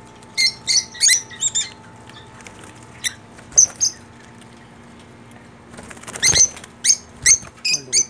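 Small caged parrots chirping in short, shrill calls. A cluster comes in the first couple of seconds, a few more around three to four seconds, and a louder, denser burst from about six seconds on. A faint steady low hum runs underneath.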